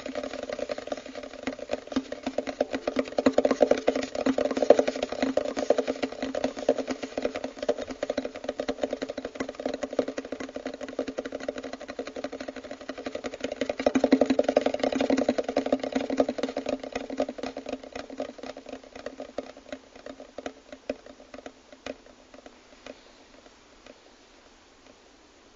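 A machine running steadily with a fast clatter, swelling twice, then fading out over the last several seconds.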